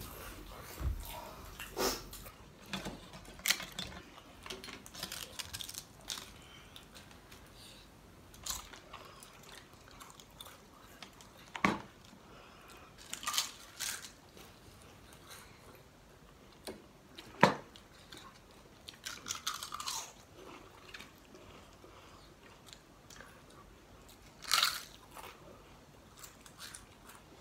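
Close-up eating sounds: scattered crunching, biting and chewing of crisp papad and french fries. Two sharp knocks stand out as the loudest sounds, a little under halfway and about two-thirds of the way through.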